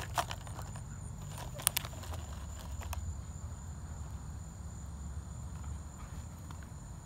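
A puppy biting a plastic water bottle: a few sharp crinkles and crackles of the plastic within the first three seconds, then none. A steady high-pitched insect hum carries on in the background.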